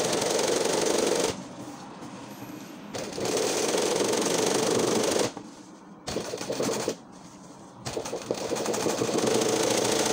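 Sewing machine running fast, stitching an embroidery outline through fabric held in a hoop, with a dense steady rattle. It pauses three times, briefly, as the fabric is repositioned.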